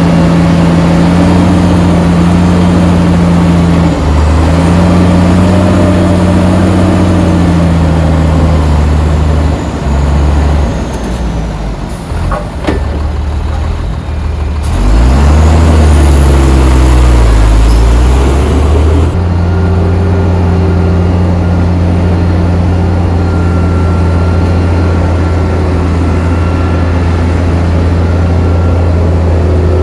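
Heavy diesel engines of earthmoving machinery working sand, running loud and steady, with the engine note rising and falling as it is revved through the middle stretch before settling back to a steady pitch.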